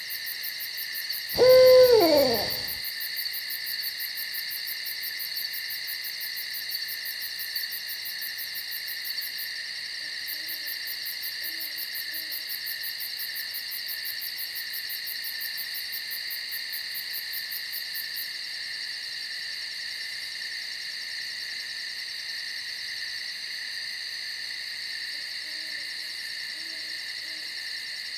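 An owl gives one loud hoot that falls in pitch, about a second and a half in, and short faint hoots follow twice later on. Under it a steady chorus of night insects runs on, with a rapid high pulsing trill that stops about two-thirds of the way through.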